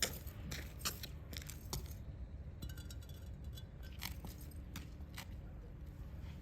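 Irregular sharp clinks and taps of hard objects being handled, including a quick run of small ticks midway, over a steady low rumble.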